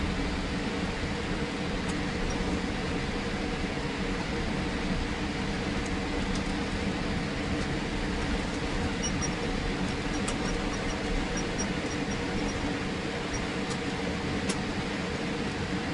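Steady cabin noise inside a Boeing 787 airliner taxiing: engine and air-conditioning hum with a few steady low tones under an even rush.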